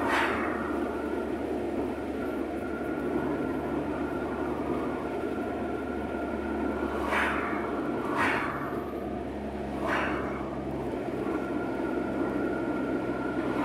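Steady car road noise and engine hum heard from inside a moving car. Oncoming cars whoosh past several times: once at the start, three times close together in the second half, and again at the end.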